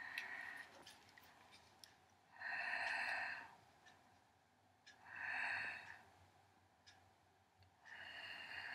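Three long, breathy snorts about two and a half seconds apart.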